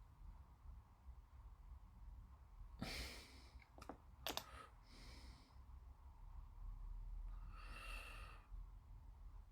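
Close, quiet handling of a plastic model kit: two small sharp clicks about four seconds in as parts are pressed into place, and a breath or sigh near three seconds and again near eight seconds.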